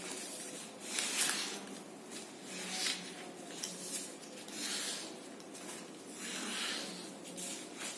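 A sheet of paper rustling and rubbing under the hands as it is folded and its creases pressed down, in a run of short rustles.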